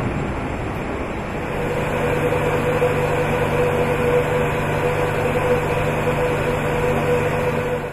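Steady mechanical hum and air noise of a large industrial assembly hall, with a steady whine joining about a second and a half in.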